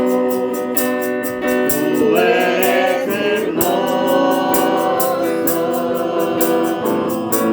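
Group of voices singing a Spanish worship chorus to a strummed acoustic guitar, with a steady strumming rhythm.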